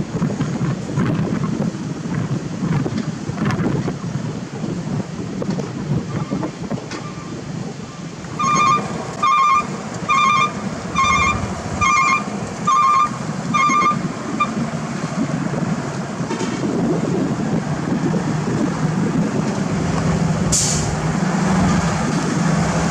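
Heavy truck's diesel engine running as it pulls a loaded flatbed along a dirt road, with wind buffeting the microphone. About eight seconds in come seven short, evenly spaced beeps, roughly one a second, and near the end there is a brief sharp hiss.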